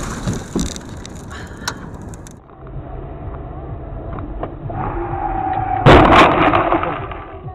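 Car horn sounding steadily for about a second, then a loud crash as a car collides with another car, followed by a short clatter of impact noise.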